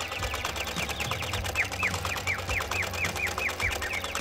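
Small electric motor and gearbox of a home-made model tractor running with a steady hum and fast fine rattle as it pulls a tine cultivator through sand. A run of short, falling high chirps, about four a second, sounds through the middle.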